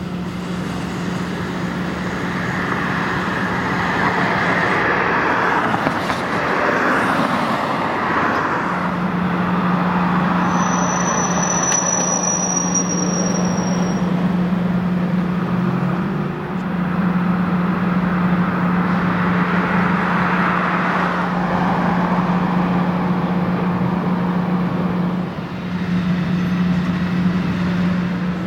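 Street traffic passing, with vehicles swelling by twice, over a steady low hum. A thin high-pitched squeal, falling slightly, comes about ten seconds in and lasts a few seconds.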